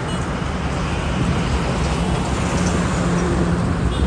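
Steady highway traffic noise from cars, buses and trucks going by, with a low engine drone underneath.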